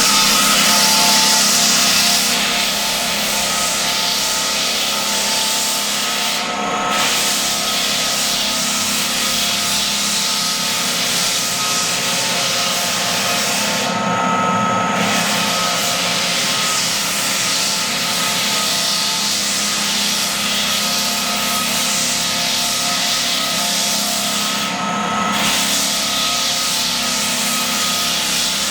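Belt floor sander running and grinding across old heartwood pine floorboards, with a steady loud motor hum under a dense sanding hiss. The high hiss drops out briefly about three times, around 7, 14 and 25 seconds in.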